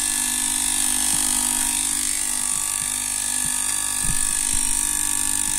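Hitachi 1.5-ton R22 air-conditioner compressor running steadily on test, a constant electric hum with a high hiss, drawing about 3.5 amps, which the owner takes as a sign that it is working normally. A few soft low knocks come about four seconds in.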